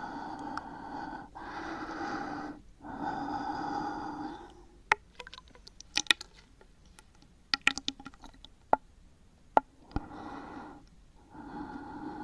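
Close-miked ASMR breathing: several long, drawn-out breaths with short gaps between them. In the middle comes a pause filled with a scattering of small sharp clicks and pops, then the breathing returns near the end.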